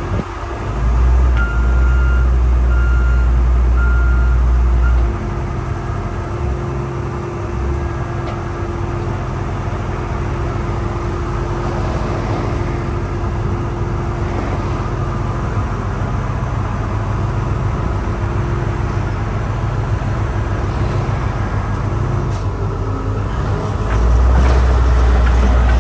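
Dynapac SD2500CS asphalt paver's diesel engine running steadily, louder for the first few seconds and again near the end. A warning beeper sounds several short beeps about a second in.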